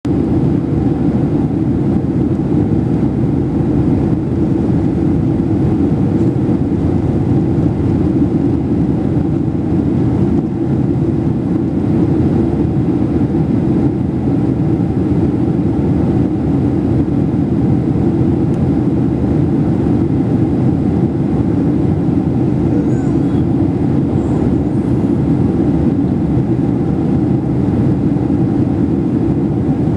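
Airliner cabin noise in flight: the steady, even low rush of the engines and airflow heard from inside the cabin.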